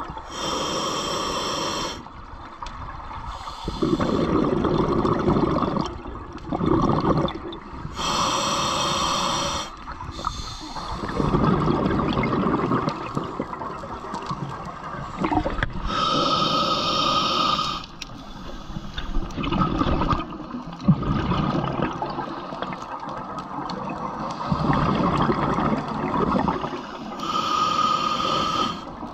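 Scuba diver breathing through a regulator underwater: four long hissing breaths with a faint whistle in them, each followed by a longer spell of bubbling.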